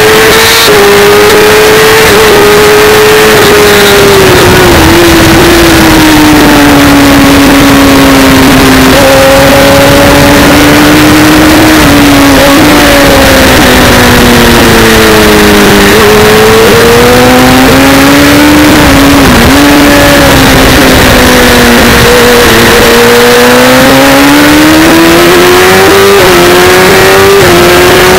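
Sport motorcycle engine heard from on board at track speed, very loud, its pitch sinking slowly into corners and climbing again on the exits, with a few short steps that could be gear changes. A constant rush of wind noise runs underneath.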